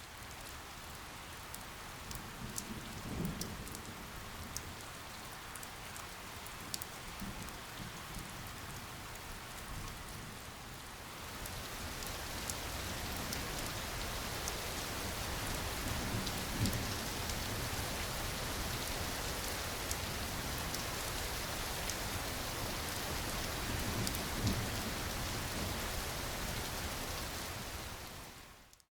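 Steady rain falling, growing a little heavier about a third of the way in, with a few low rumbles underneath. It fades in at the start and fades out near the end.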